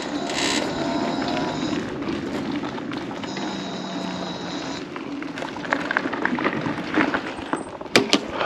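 Mobility scooter rolling along, a steady hum of motor and tyres, turning in the second half to the crunch and scattered clicks of gravel under the tyres.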